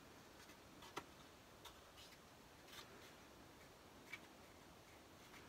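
Near silence, with a few faint, short clicks and taps of folded cardstock being handled and pressed together. The clearest comes about a second in.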